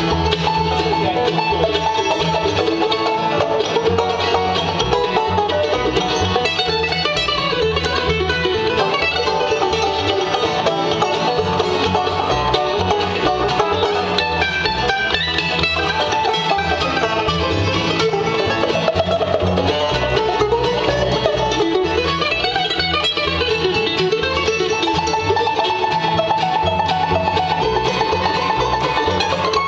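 Live bluegrass band playing an instrumental stretch with no singing: five-string banjo, mandolin and acoustic guitar picking together.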